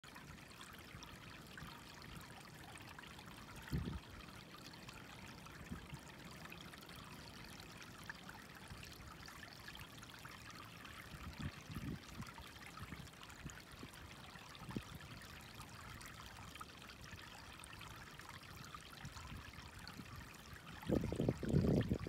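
Shallow water trickling faintly and steadily over a flat rock, with a few soft low knocks. Near the end a louder low rumbling sets in.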